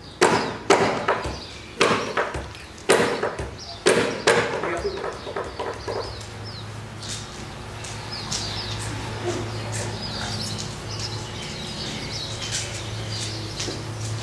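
Ipu heke (Hawaiian double gourd drum) struck in slow, heavy beats about a second apart, then a quicker run of lighter taps that ends about six seconds in. Afterwards, birds chirping over a steady low hum.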